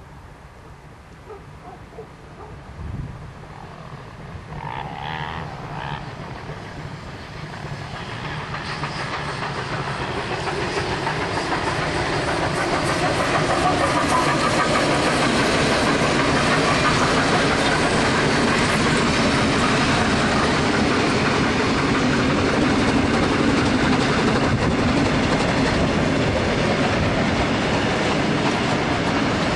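A train double-headed by two BB18¼ class steam locomotives, growing from faint to loud as it approaches and passes. About five seconds in a short whistle sounds in the distance. From about twelve seconds on comes the steady rumble and wheel clatter of the wagons and carriages rolling by.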